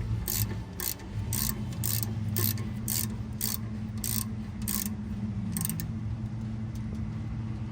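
Hand ratchet wrench being worked back and forth, its pawl clicking in short rasps about twice a second, tightening the brake caliper bolts; the strokes stop about six seconds in. A steady low hum runs underneath.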